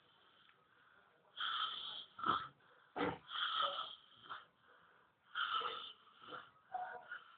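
A sleeping person snoring: three wheezy, rasping breaths about two seconds apart, starting a little over a second in, with short snorts between them.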